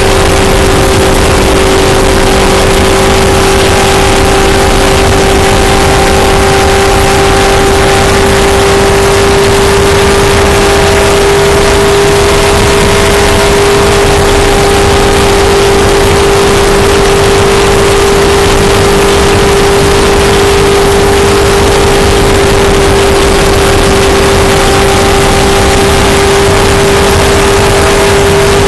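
Stock car's V8 engine running flat out at one steady, unchanging pitch, heard from inside the cockpit as a loud drone with rushing wind and road roar.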